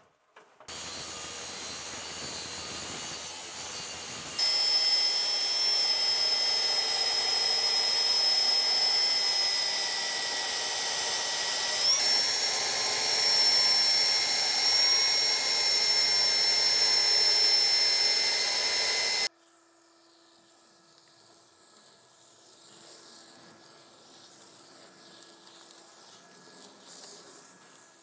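Milwaukee M18 cordless belt sander, hooked to a dust-extraction hose, sanding a cabinet's wooden edge down to a scribed line: a steady high whine over a sanding hiss for about fifteen seconds, after a few seconds of quieter running. It then cuts off suddenly, leaving a faint hum.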